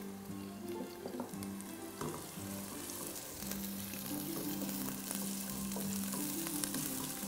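Coarsely chopped onion sizzling in hot olive oil in a pot, stirred with a silicone spatula, with a few light taps of the spatula against the pot about a second in. Soft background music with sustained notes plays underneath.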